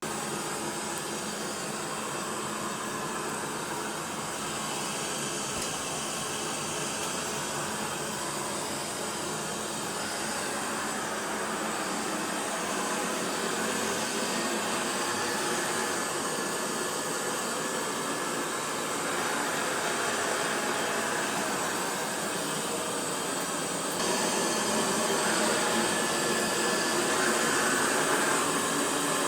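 Lejoy LD20 robot vacuum cleaner running: a steady whirr of its suction motor and brushes with a faint high whine. It shifts a little in tone every few seconds and gets somewhat louder in the last few seconds.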